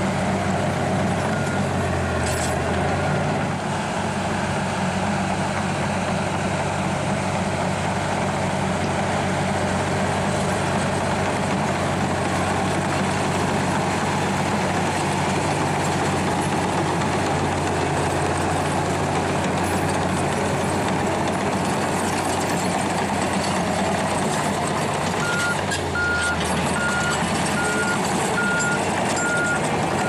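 Crawler bulldozer working: its diesel engine runs steadily under load as it pushes soil. Near the end a reversing alarm starts beeping, about one and a half beeps a second.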